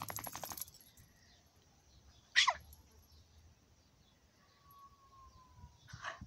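Dogs play-fighting: a short rasping burst at the start, then a sharp yelp falling steeply in pitch about two and a half seconds in, the loudest sound. A thin, faint whine follows, then another short yelp near the end.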